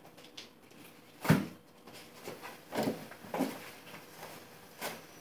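A few irregular knocks and bumps in a small room: one loud, deep thump about a second in, then softer knocks and a sharp click near the end.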